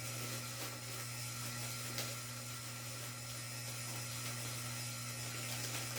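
Ceiling fan running with a steady low hum and a whir, plus a faint click about two seconds in.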